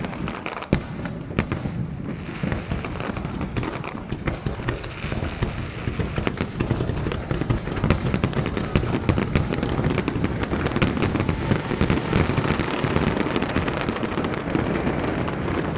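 Aerial fireworks display: a continuous barrage of bangs and crackling bursts with no pause, growing denser and louder about halfway through.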